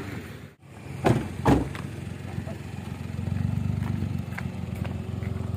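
A vehicle engine idling steadily, with two sharp knocks about a second in.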